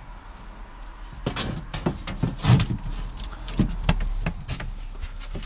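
Irregular knocks and short scrapes from an old metal stop sign being handled and tried against the wall: several separate bumps about a second apart.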